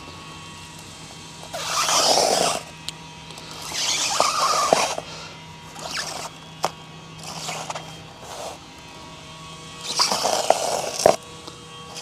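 A razor knife slitting an Armaflex closed-cell foam pipe-insulation tube lengthwise by hand: about six short noisy strokes, each about a second long, with a few sharp clicks between them. A faint steady hum sits underneath for the first two-thirds.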